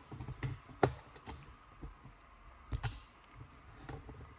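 Handling noise from a camera being moved and set in place: a few sharp clicks and knocks, the loudest about a second in and a pair close together near three seconds.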